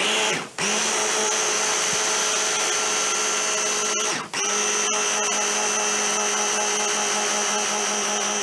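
Electric stick blender with a chopper bowl attachment running at a steady pitch as it blends a chickpea chocolate paste. The motor stops briefly about half a second in and again about four seconds in, then starts again each time.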